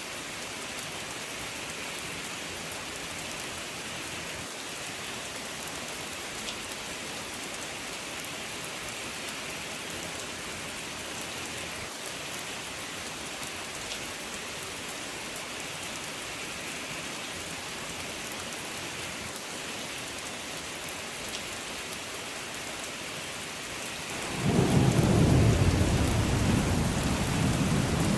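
Steady heavy rain falling; about 24 seconds in, a loud low rumble of thunder rolls in over it and keeps going.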